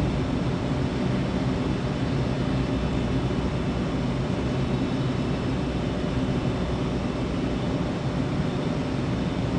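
A train's steady low mechanical drone with a hum in it, holding an even level with no rise or fall.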